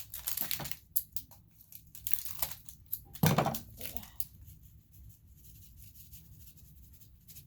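Plastic packaging crinkling and tearing with scattered small clicks as a small accessory pack is handled and opened, with one louder rustle about three seconds in; after that it goes nearly still.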